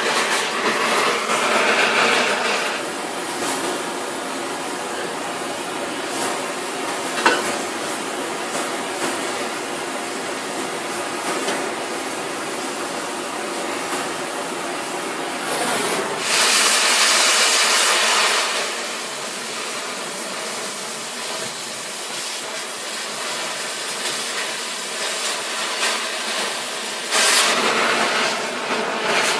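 Cutting torch hissing steadily as it cuts through a steel railroad rail, growing louder for a couple of seconds about sixteen seconds in and again near the end.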